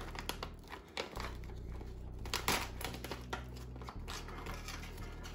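A foil-lined plastic freeze-dried meal pouch being torn open across the top and crinkled in the hands, in irregular crackles with a sharper rip about two and a half seconds in.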